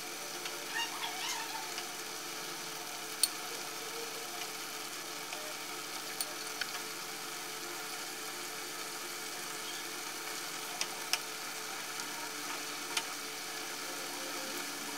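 Tomato wedges and shallots simmering in water in a frying pan, a steady quiet sizzle, with a few sharp light clicks of chopsticks against the pan and bowl as the tomato skins are picked off.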